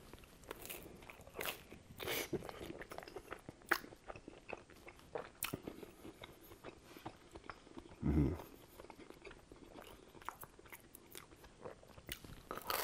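A person biting and chewing a slice of pizza with a crisp crust: irregular crunchy bites and chewing, with one short low thump about two-thirds of the way through.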